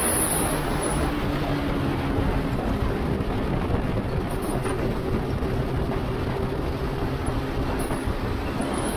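Motorcycle cruising at a steady speed: constant wind rush over the bike-mounted microphone, with the engine's even hum underneath.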